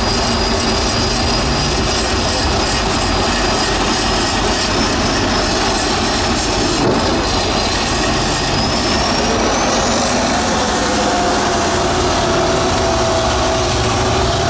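Diesel engine of a six-wheeled off-road trial truck running hard and loud as the truck crawls over a dirt mound and drives away. A high whistle rises in pitch about ten seconds in.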